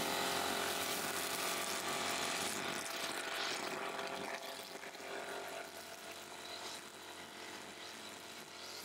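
Brush cutter with a nylon-line trimmer head running at full speed, its line whipping through long grass; a steady mechanical whine that eases slightly after about four seconds.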